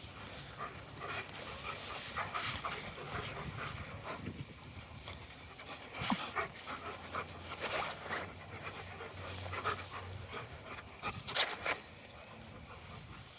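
German Shepherd dogs panting, with a few short, louder noises close together about eleven seconds in.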